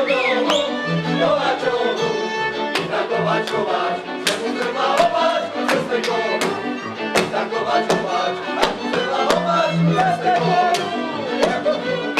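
Slovak folk string band playing, a fiddle carrying the melody over a stepping bass line, with sharp strikes across the rhythm.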